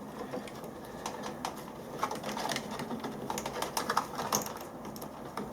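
Small irregular clicks and handling noise of crimped spade terminals being pushed onto the controller's connectors; the new crimps are a very tight fit.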